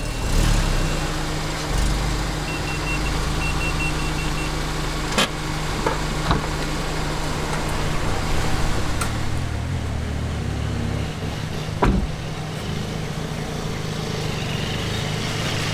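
A car engine running steadily at idle. A few quick high beeps come about three seconds in, and there are two sharp knocks, around five seconds and near twelve seconds.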